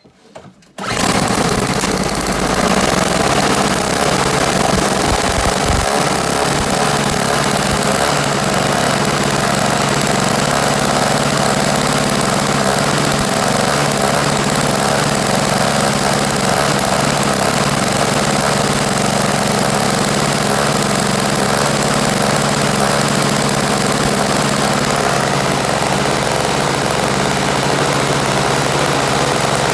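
Toro CCR1000 snowblower's Tecumseh 3 hp two-stroke engine catching about a second in and then running steadily. The carburetor's clogged pickup jet has just been cleaned, so the engine now starts and keeps running.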